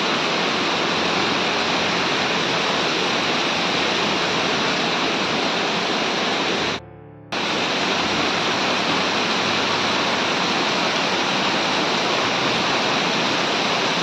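Waterfall cascading over rock steps: a steady, full rush of falling water. It cuts out for about half a second near the middle, then carries on.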